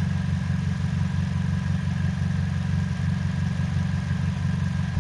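2007 Pontiac G6's 2.4L Ecotec inline-four idling steadily on freshly replaced coil packs, running smoothly, with a faint steady whine above the engine note.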